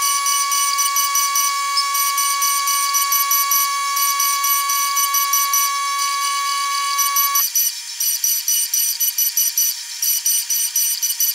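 Pocket NC desktop mill cutting an aluminium housing, its sound played back sped up into a high buzzing whine with rapid repeating chirps. A steady tone in it cuts off about seven seconds in.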